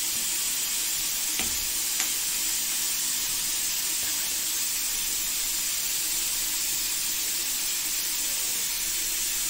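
A steady high hiss, with two light knocks about a second and a half and two seconds in as a kitchen knife cuts through a small lime onto a stone countertop.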